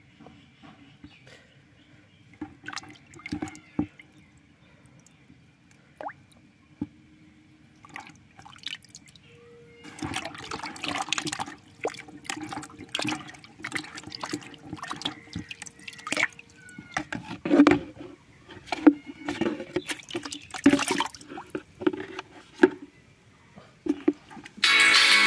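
Hand swishing and splashing grapes around in a plastic tub of water, washing them. It starts as scattered drips and small splashes, then turns into louder, steady sloshing from about ten seconds in.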